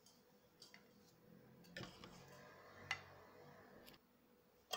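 Near silence with four faint taps about a second apart, a utensil knocking against a stainless steel cooking pot as mashed potato is spooned in.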